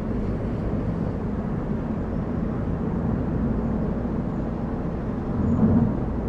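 Car being driven on a mountain road: steady low engine and tyre rumble, swelling briefly about five and a half seconds in.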